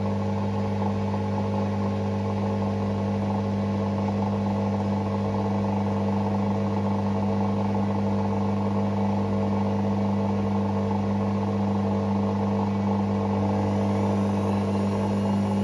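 Hoover Six Sportswear 1300 AI130 washing machine running a Speed Wash cycle, its motor giving a steady hum with a faint rising whine near the end.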